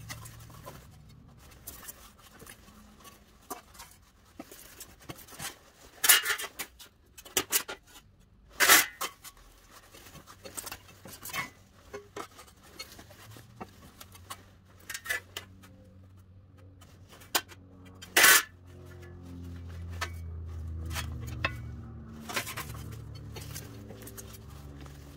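Sheet-steel panel being bent by hand over a steel pipe: scattered metallic clanks and ticks as the sheet and gloves shift on the pipe, with a few sharper clanks about 6, 9 and 18 seconds in. A low steady hum comes in past the middle.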